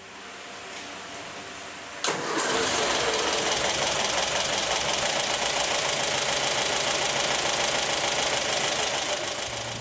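Hindustan Ambassador Mark 2's BMC B-series four-cylinder engine turning over for about two seconds, then catching and running loudly at a fast idle, fading out near the end. This is the engine's first start after a full rebuild and three years standing.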